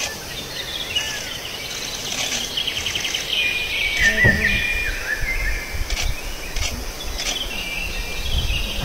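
Outdoor ambience of birds chirping and trilling, with an insect hum beneath. A brief lower gliding cry cuts in about four seconds in.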